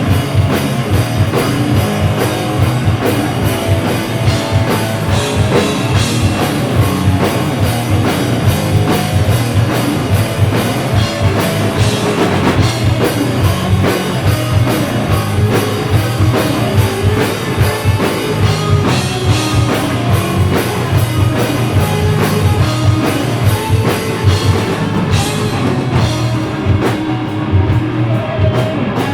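Stoner metal band playing live: distorted guitar and bass over a driving drum kit, with no vocals.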